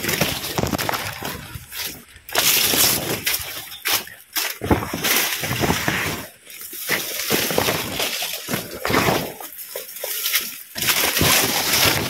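A person walking through a banana grove: footsteps and the rustle of leaves and undergrowth, in irregular bursts with short pauses.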